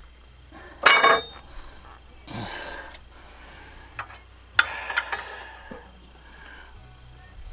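Metal clinks and knocks as the camshaft of a Cummins ISX single-cam diesel is worked out of its bore in the block: a sharp clink about a second in, a brief rustle, then a quick cluster of knocks a little before the five-second mark.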